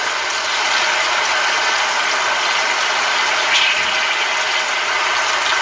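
Flour-battered chicken breast pieces sizzling steadily as they fry in a shallow layer of oil in a pan.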